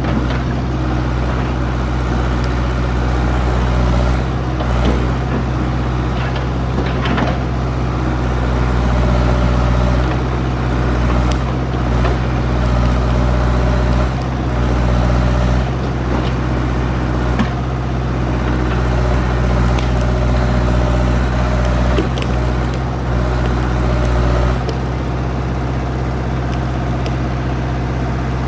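Old backhoe's engine running steadily with a low drone, with scattered short knocks and clanks over it.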